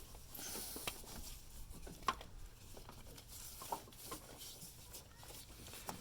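Faint, scattered light clicks and rustling from a new serpentine accessory-drive belt being handled and worked onto the engine's pulleys.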